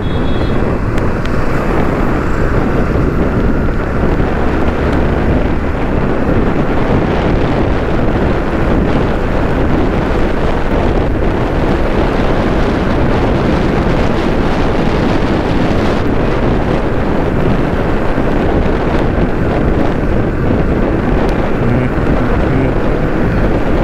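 Steady wind rush over the microphone of a motorcycle on the move, with the bike's running noise mixed in underneath.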